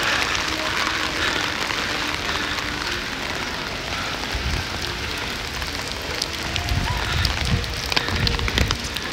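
Steady rain falling, an even hiss with scattered pattering drops. Low rumbling bumps come in during the second half.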